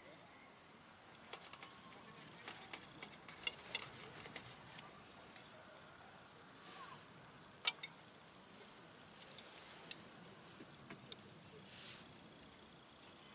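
Scattered light clicks and taps of camp cooking utensils on metal and a plate as the grilled meat is handled and cut. The taps are quick and clustered at first, then single, with a couple of brief soft rustles.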